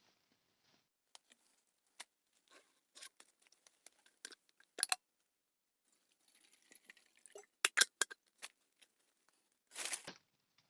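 Close handling noises: a run of sharp clicks and short crinkling rustles, a longer crinkle around six to seven seconds in, and a louder rustle near the end, like packaging being torn and crumpled.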